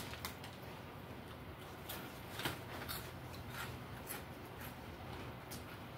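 Fried chicken being eaten: irregular soft clicks and crunches of chewing and lip smacks, about nine over several seconds, over a faint steady low hum.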